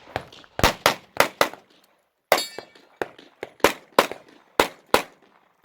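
Glock 45 9mm pistol firing about a dozen rapid shots, mostly in quick pairs. One report a little over two seconds in rings on after the shot.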